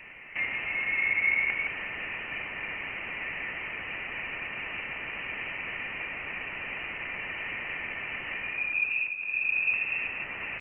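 Electromagnetic plasma-wave signals from interstellar space, picked up by a NASA spacecraft's instruments and converted into audio: a steady high hiss with faint steady tones in it. A brighter tone stands out about a second in, and another, slightly rising, comes near the end.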